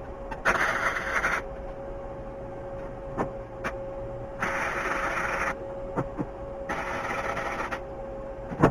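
Wire-feed welder striking three short tack welds on the steel battery box, each about a second of crackling, hissing arc. A few sharp clicks and knocks from handling the clamp and gun fall between the welds.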